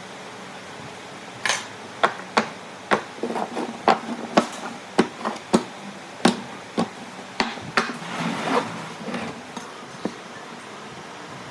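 Tool blows on wood: a run of about fifteen sharp, irregular knocks over some seven seconds.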